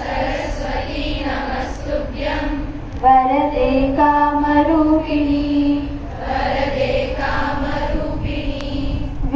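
A large group of women and girls singing together in unison, a slow prayer-like chant with long held notes.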